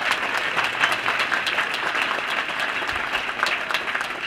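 Crowd applauding, gradually dying down near the end.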